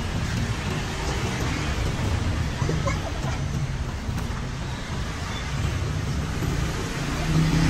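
Steady street traffic noise: passing motorbike and car engines making a continuous low rumble.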